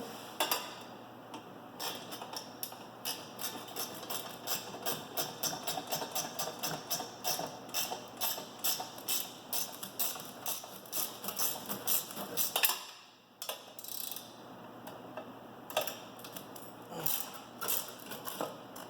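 Ratchet wrench clicking fast and steadily while a handle bolt on a Mantis tiller is tightened. It stops for a moment about two-thirds of the way through, then clicks again in shorter runs.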